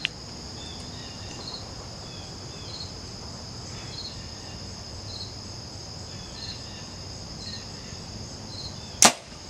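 Insects keep up a steady high trill in the background, with a short chirp repeating about every second. Near the end a compound bow is shot, a single sharp snap as the string is released.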